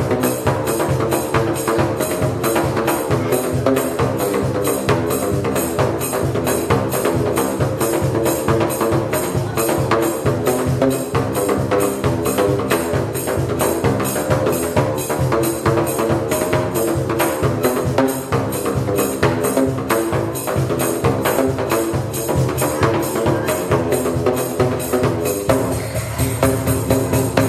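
Home-made drain-pipe drum kit struck with flip-flops: a fast, steady run of slaps on the open ends of plastic pipes cut to different lengths, each pipe giving its own pitched note, so the strokes make up a tune.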